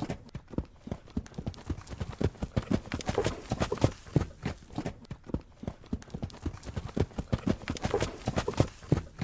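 Rapid clip-clop knocking, about five sharp strikes a second with no pause, like a hoofbeat sound effect.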